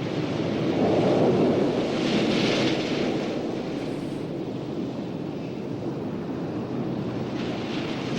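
Ocean waves surging and breaking against the reef's outer edge: a continuous rushing of rough water that swells about a second in, with hissing surges of spray and foam around two to three seconds in and again near the end.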